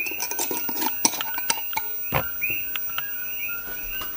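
Hand pepper grinder twisted over a pan: an irregular run of crackling clicks. A short high chirp repeats about three times a second behind it.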